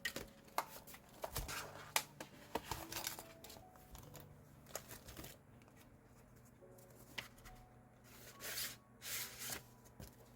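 Paper and stationery being handled on a desk during diary decorating: light taps, clicks and rustles, with a few short scratchy rasps near the end.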